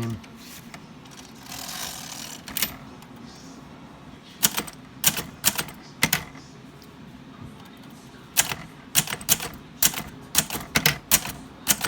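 Underwood Universal manual typewriter keys striking the platen one at a time in slow, uneven bursts. A few strokes come at about four seconds in, then a quicker run starts after about eight seconds.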